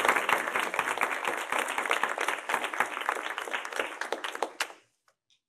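Audience applauding, a dense patter of many hands clapping that thins out and stops near the end.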